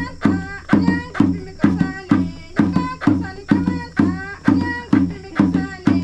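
Small hand-held drums beaten in a steady beat of about two strokes a second, with women's voices singing a melody over it.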